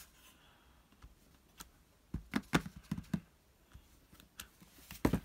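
Clear acrylic stamp block knocking against an ink pad and craft mat while a rubber stamp is inked with Versamark and placed on vellum. A quick run of about four light taps comes about two seconds in, one more follows a second later, and a sharper knock comes near the end.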